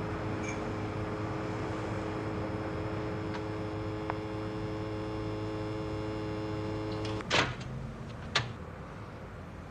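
A steady hum of several held tones cuts off abruptly about seven seconds in. Two sharp knocks follow about a second apart, the first the louder and slightly longer.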